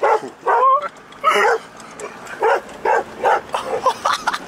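Dog barking repeatedly: about nine short barks, some higher and yelping, with a pause in the middle and quicker barks toward the end.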